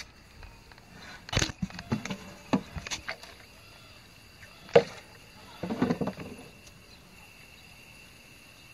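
Clicks and knocks of a propane gas regulator being pushed onto a gas bottle's valve, then a sharp squirt and a short burst of squirts from a trigger spray bottle as washing-up liquid is sprayed on the joint to check it for leaks.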